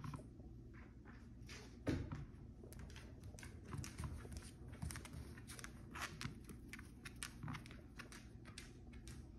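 Faint, irregular clicking of dogs' claws on a hard laminate floor as they walk, with one louder knock about two seconds in.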